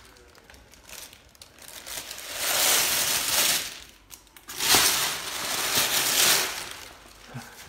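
Thin plastic bag rustling and crinkling as hands work inside it, in two long stretches with a sharp click at the start of the second.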